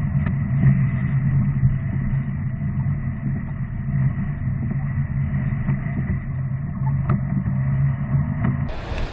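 A car driving: steady low drone of engine and road noise. Near the end it cuts abruptly to wind noise.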